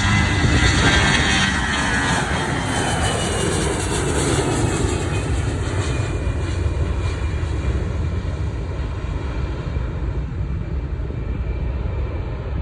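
Delta Airbus A320 jet engines at takeoff power as the airliner passes: a loud, steady roar with a high whine that falls in pitch over the first several seconds, then a roar that slowly eases as the plane moves away.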